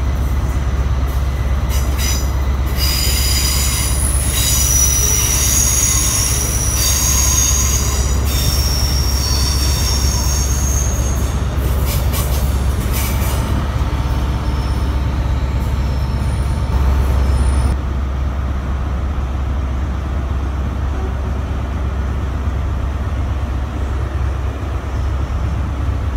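A Heathrow Express Class 332 electric train running past along the platform over a steady low rumble. Its wheels squeal in several high tones from about two seconds in until about thirteen seconds.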